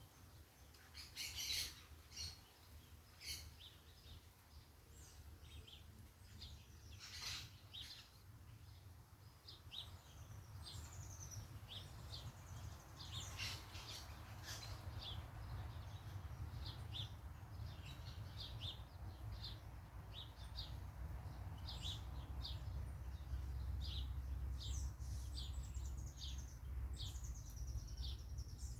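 Parakeets chirping and calling: many short high chirps with now and then a falling whistled note, over a steady low rumble that grows louder in the second half.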